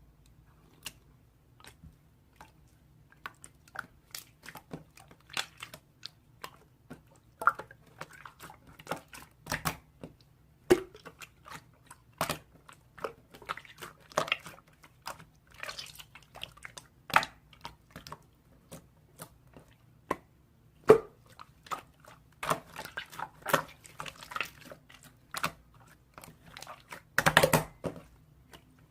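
Slime being squeezed and poked by hand, making irregular sticky clicks, pops and squishes.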